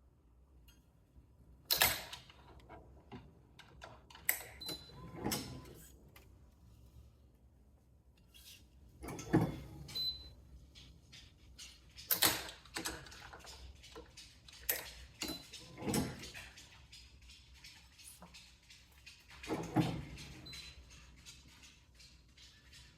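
Irregular clicks, knocks and rattles of a badminton racquet being strung. Some clicks carry a brief high ring.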